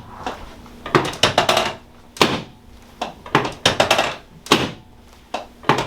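Quick runs of sharp clicks and taps from a chiropractic treatment of the hip, several strikes in each burst, the bursts coming every second or so.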